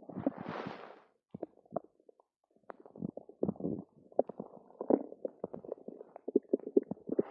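Stomach gurgling and rumbling in clusters of short wet pops and bubbles, with a brief hiss in the first second, a near-quiet pause, then gurgling that starts again about three seconds in and gets busier. The owner puts it down to drinking two cartons of yogurt.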